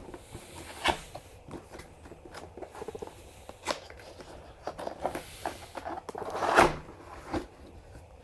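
Cardboard keyboard box being opened and its contents handled: scattered knocks, scrapes and rustles, the loudest about six and a half seconds in.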